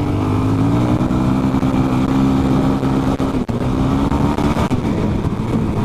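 Suzuki DR-Z400E single-cylinder four-stroke dirt bike engine running under throttle while riding. Its pitch climbs a little at first and then holds steady, with a brief drop in sound about three and a half seconds in.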